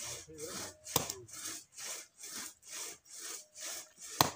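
Hand saw cutting wood in steady back-and-forth strokes, about two a second, with a sharp knock about a second in and another near the end.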